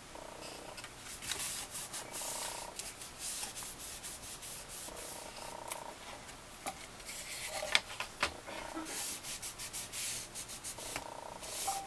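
Crumpled paper tissue rubbed firmly back and forth over glued cardstock panels, pressing them flat: a run of dry rubbing strokes of uneven length, with a couple of sharp ticks about eight seconds in.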